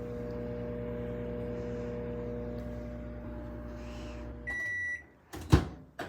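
Microwave oven running with a steady hum until about four and a half seconds in, then one beep signalling the end of the cook cycle, followed by a sharp clack as the door is opened.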